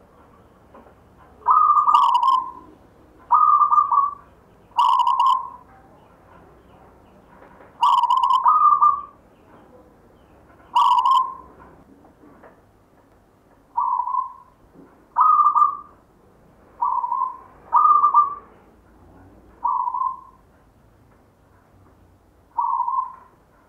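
Zebra dove (perkutut) cooing: about a dozen short coos, each about half a second, spaced one to two seconds apart, several of them opening with a brief higher note.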